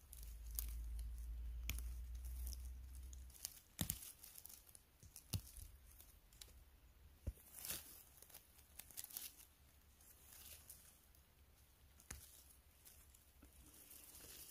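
Faint rustling and crackling of forest-floor moss and twigs being stepped on and handled, with scattered sharp snaps. A low rumble is heard during the first three seconds.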